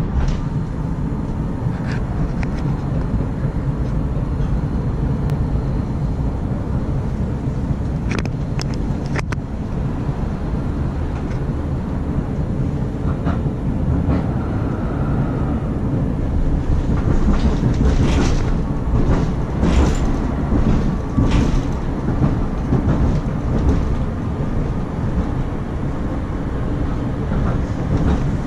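A Bombardier Variotram low-floor tram running on street track, heard from inside the passenger cabin: a steady low rumble with scattered knocks and rail clatter, busiest in the second half.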